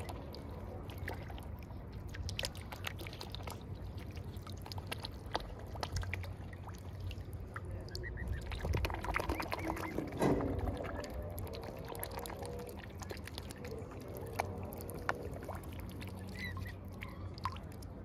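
Swans and geese dabbling and feeding at the water's surface: many irregular small splashes and wet clicks, busier and louder about nine to ten seconds in, over a steady low hum.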